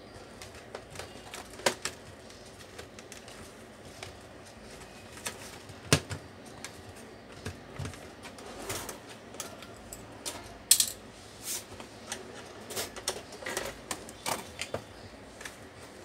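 Irregular plastic clicks and taps from a screwdriver and hands working on an inkjet printer's casing and ink tank unit, with a few sharper knocks among them.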